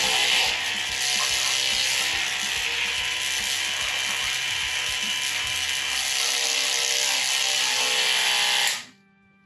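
Steady loud hissing rush as IPA is siphoned from a glass carboy through an auto-siphon and tubing into a keg, cutting off suddenly near the end.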